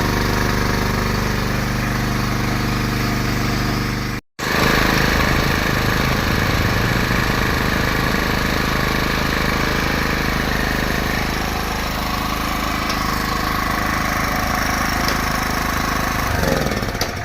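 Portable generator's four-stroke engine running steadily under a constant hum, cut off for an instant about four seconds in, then running on.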